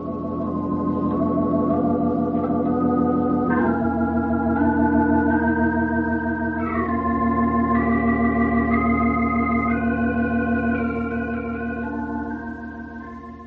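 Organ music bridge marking a scene change in a radio drama: slow held chords with a wavering vibrato, moving to new chords about four and seven seconds in, then fading out near the end.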